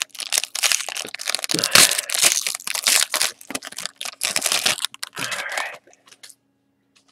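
A foil trading-card pack wrapper being torn open and crinkled by hand, a dense run of crackling and rustling that stops about six seconds in.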